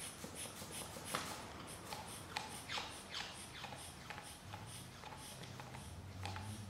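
Inflated latex modelling balloon pushed slowly through sand: short rubbery squeaks and gritty crackles as grains scrape and drag against the rubber, coming irregularly several times a second.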